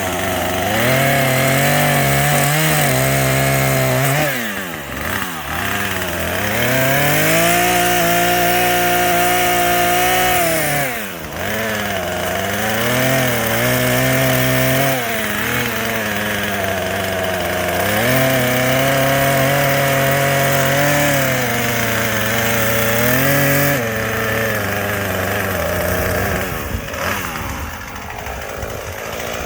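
Small gas chainsaw cutting off low stumps: the engine runs at high throttle in long stretches, its pitch dropping and climbing back several times as the throttle is let off and squeezed again, and it settles to a lower idle near the end.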